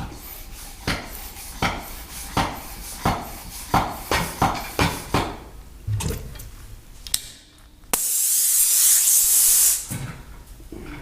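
Flash-charger bicycle floor pump being worked in short strokes, about one every 0.7 s and quickening toward the end, topping off the tyre's pressure. About eight seconds in comes a loud hiss of air lasting about two seconds.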